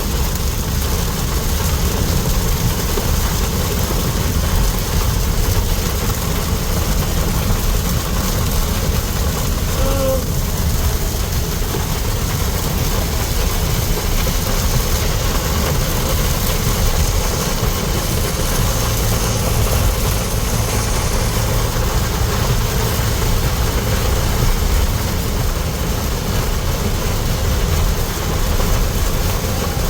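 Heavy rain pouring down steadily, a dense, unbroken hiss with a low rumble underneath.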